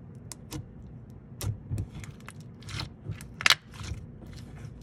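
Slime being squished and played with by hand, making irregular sticky clicks and pops, with the loudest about three and a half seconds in.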